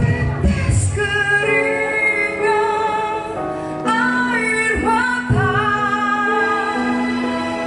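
A woman singing a song into a microphone over instrumental accompaniment, holding long notes with a wavering vibrato.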